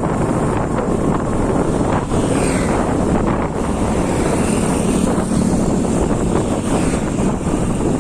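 Wind buffeting a phone's microphone on a moving motorcycle, a steady rush with the bike's engine and road noise underneath.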